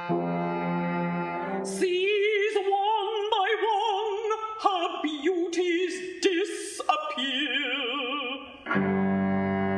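Operatic contralto voice singing with a wide vibrato, in phrases framed by sustained low accompaniment chords at the start and again near the end.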